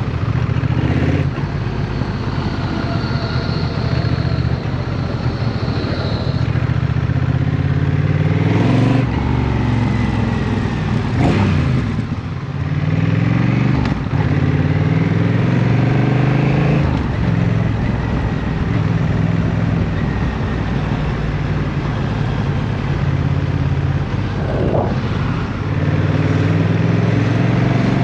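Honda CMX1100 Rebel's 1,084 cc parallel-twin engine riding through city traffic. Its pitch climbs several times as it accelerates through the gears and drops at each shift, with steadier cruising and slowing in between.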